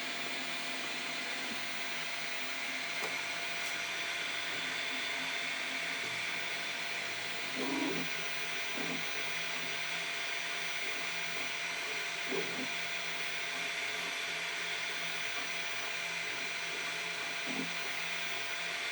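Flashforge Finder 3D printer running: a steady whir from its fans and stepper motors, with a few brief changes in the motor sound.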